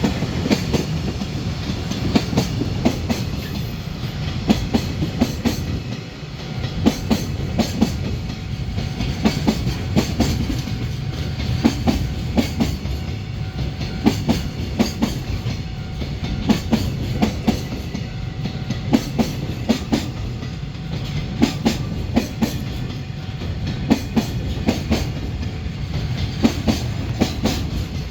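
Container freight train behind an EH500 electric locomotive rolling past, its wagon wheels clacking over the rail joints in repeated clusters over a steady low rumble.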